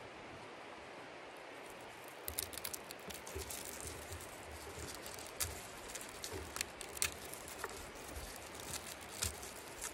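Hands pulling apart a tough garlic bulb, its papery skins crackling and tearing in a run of irregular sharp clicks that starts about two seconds in, over a steady outdoor hiss.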